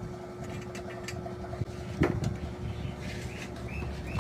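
Steady low hum of running workshop machinery, with a single sharp knock about two seconds in.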